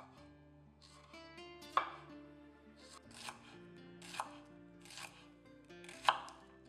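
Chef's knife slicing a shallot on a wooden cutting board: separate cuts about once a second, each ending in a knock of the blade on the board.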